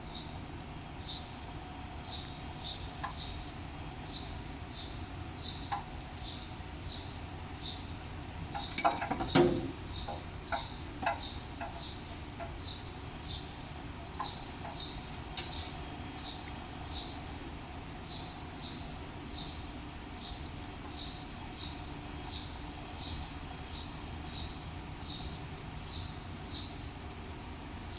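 A small bird calling a short, high chirp over and over, about one and a half times a second. A few sharp metal clanks come near the middle.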